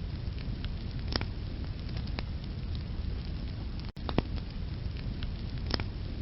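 Wood fire burning in a fireplace: a steady low rumble of flames with sharp crackles and pops from the logs, a few of them standing out, the loudest about a second in and near the end. The sound cuts out for an instant about four seconds in.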